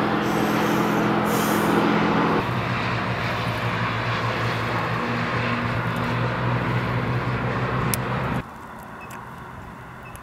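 Motorcycle engines on a highway, a loud steady droning hum that cuts off suddenly about eight seconds in.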